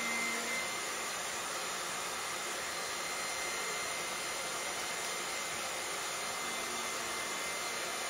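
Handheld hair dryer running steadily as it dries a wet puppy's coat: a rush of air with a faint, steady high whine.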